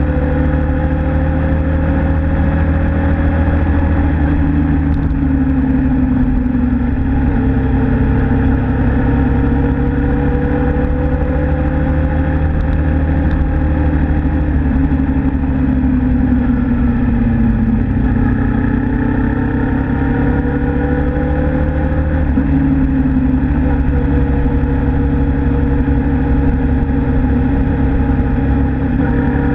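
Suzuki Inazuma GW250's 248 cc parallel-twin engine running under way. Its pitch rises slowly and drops back several times over a steady low rumble.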